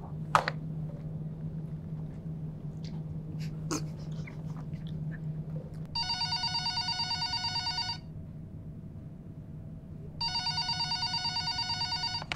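Office desk telephone ringing twice, each ring about two seconds long and about two seconds apart, over a steady low hum.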